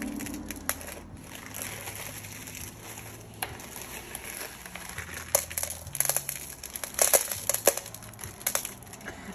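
Small pieces of crushed glass clicking and clinking as they are set down and pushed around by hand on a glass pane. The clicks grow thicker in the second half, when a plastic bag of glass pieces is handled.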